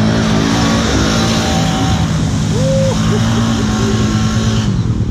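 ATV engine running hard at steady high revs, with a wide hiss over it. The sound changes abruptly near the end.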